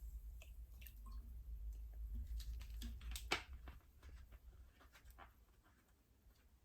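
Faint scattered clicks and light taps, the sharpest about three seconds in, over a low steady hum that fades out partway through.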